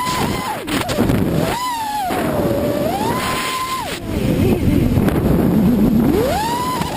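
Racing quadcopter's four Cobra 1960 kV brushless motors and propellers whining, the pitch climbing and falling with the throttle and several times held flat at full throttle, with a rush of air and prop wash underneath, loudest in a long low-throttle dip in the middle.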